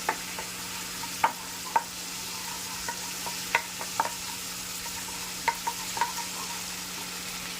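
Ginger-garlic paste sizzling in hot oil while a spoon stirs it, with about ten sharp clicks of the spoon against the pan. A steady low hum runs underneath.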